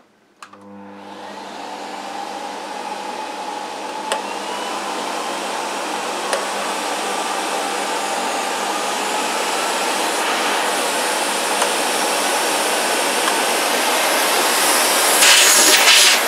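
Miele C2 Cat & Dog Powerline 1200-watt bagged canister vacuum cleaner starting up on its minimum setting, its motor whine then rising steadily in pitch and loudness as the power dial is turned up. It is louder near the end.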